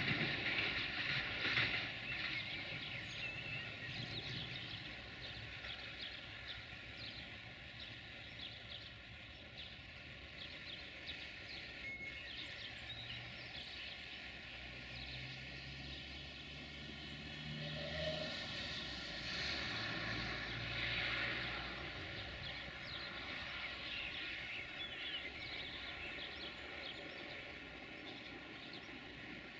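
Duewag class 628 diesel multiple unit pulling away, its diesel engine drone and wheel rumble fading as it recedes. The sound swells briefly again about two-thirds of the way through.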